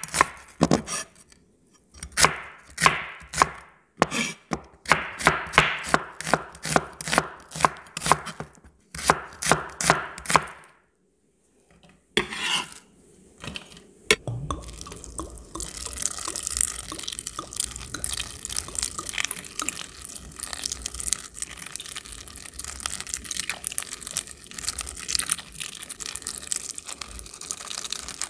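Knife chopping shallots on a wooden cutting board in several quick runs of strokes. After a short pause, a thin stream of tap water runs steadily into a bowl of sliced bitter gourd and shallots from about halfway through.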